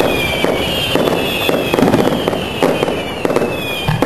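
Fireworks going off in quick succession, with sharp pops about twice a second over a high whistle that keeps sliding down in pitch.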